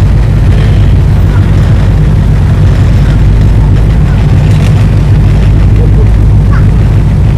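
Passenger ferry's engines running, a loud, steady low drone heard from inside the passenger cabin.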